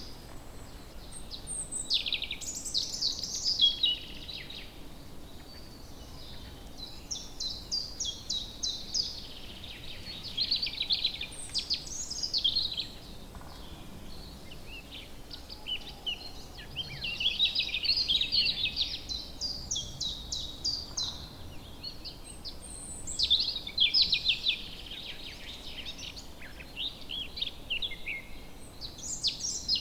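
Woodland songbirds singing: bursts of rapid, high-pitched trilling and chirping phrases every few seconds, over a faint steady background hiss.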